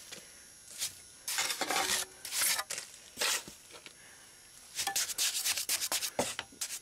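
Trowel scraping and smoothing fresh rapid-set mortar into a concrete porch edge, in separate strokes, with a quicker run of short strokes near the end.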